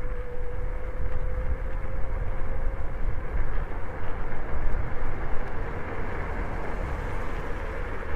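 Electric scooter riding along a city street: a steady whine from its electric motor, drifting slightly in pitch with speed, over tyre and road rumble and wind buffeting the microphone.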